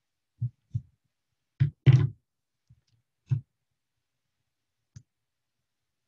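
Marker pens handled against a paper chart on a board: a few short knocks and clicks, the loudest pair about two seconds in.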